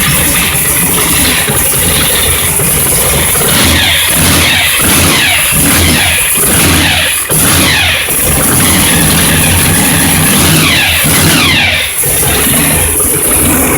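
Supercharged, stroked Mopar 440 V8 running on E85 through a new 3.5-inch exhaust with Dynomax Ultraflow mufflers and side dumps. It is revved in a series of quick blips between spells of steady running: loud, but not ridiculously loud.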